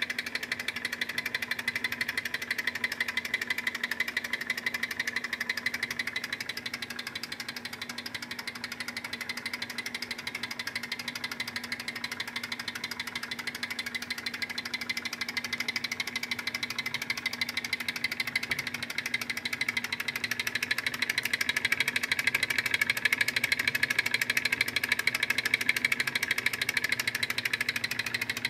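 Small gamma-type Stirling engine with half-inch cylinders and a steel flywheel running steadily, its linkage making a fast, even ticking clatter.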